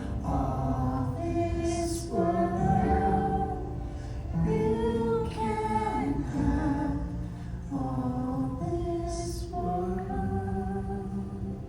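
Several voices singing a slow gospel worship song, holding long notes.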